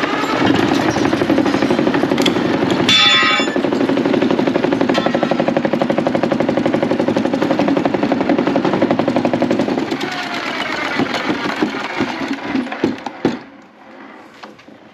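Wood lathe spinning a bark-covered, out-of-round log while a carbide-tipped turning tool cuts it, making a rapid, jackhammer-like chatter as the uneven log strikes the tool, with a harsher burst about three seconds in. The cutting stops after about ten seconds and the lathe winds down to quiet near the end.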